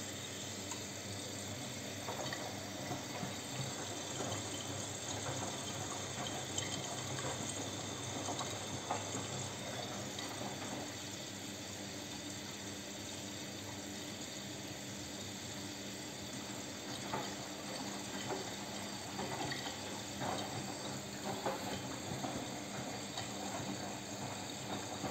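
Miele W 2105 front-loading washing machine filling for the rinse with its spray-fill: water spraying into the drum onto the laundry, a steady rush with scattered splashes.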